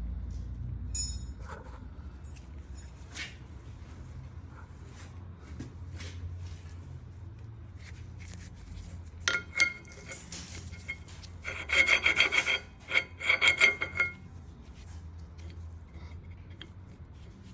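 Car brakes making a rasping, squealing grind in bursts: briefly about nine seconds in, then a longer pulsing stretch from about twelve to fourteen seconds in, over a low steady rumble.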